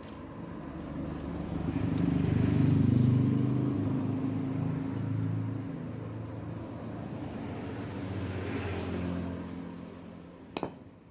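A motor vehicle engine going by: it swells to its loudest about three seconds in, then fades away. A single sharp click comes just before the end.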